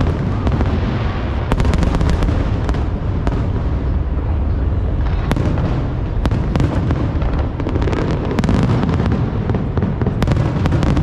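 A fireworks display: continuous rumbling booms of aerial shells, with many sharp crackling pops coming in clusters.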